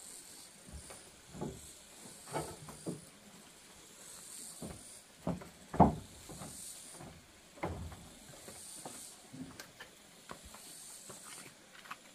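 Irregular light knocks, clicks and rustles from handling things, the sharpest knock about halfway through, over a faint on-and-off high hiss.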